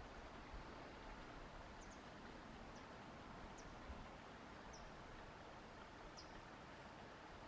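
Faint, steady outdoor hiss with about six short, high chirps from small birds scattered through it.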